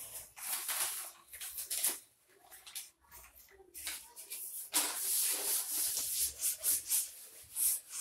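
Whiteboard being wiped clean with a duster: quick rubbing strokes across the board, a short spell near the start and a longer, denser run in the second half.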